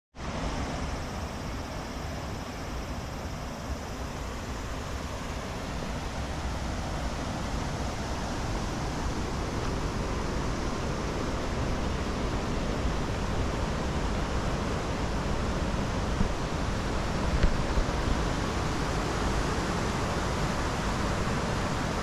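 Waterfall's falling water rushing steadily, a dense, even noise with no break.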